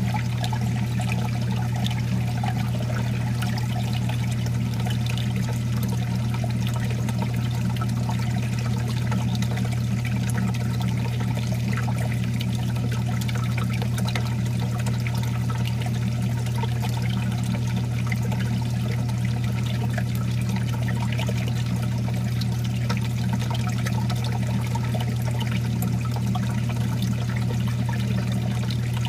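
Reef aquarium sump water trickling and splashing steadily, over a steady low hum.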